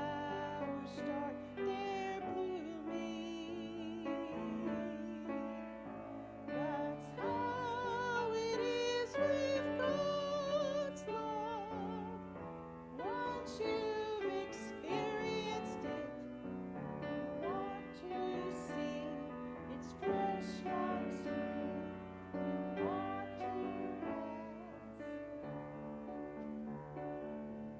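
Music: a voice singing with vibrato over piano accompaniment.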